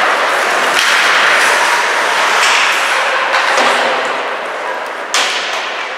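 Ice hockey play: skates scraping the ice and sticks clacking over a steady rink noise, with one sharp bang near the end.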